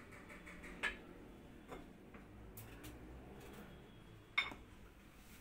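Light clicks and knocks of a kitchen knife and a slit eggplant being handled over a metal baking pan, with a sharp clink about a second in and a louder metallic clink about four and a half seconds in that rings briefly.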